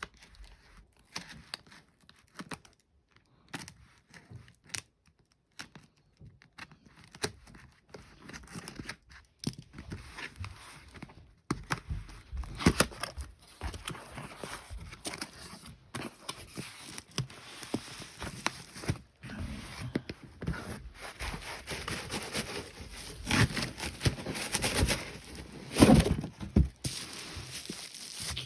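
A shipping package being opened by hand: tape tearing, with cardboard and packing material crinkling and scraping in irregular bursts. It is sparse at first and grows busier and louder from about halfway through.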